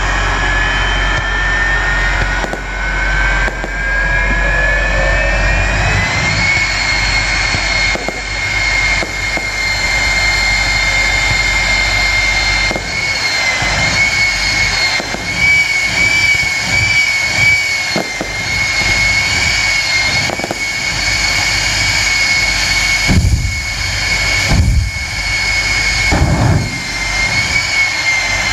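Jet engine of a jet-powered semi truck spooling up, its whine rising in pitch over the first six seconds and then holding a steady, slightly wavering high whine. A few low booming bursts come near the end.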